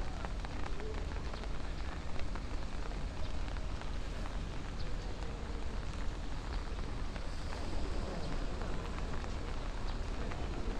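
Steady rain falling on a pool and the wet surfaces around it, a constant hiss with the patter of individual drops, over a steady low rumble.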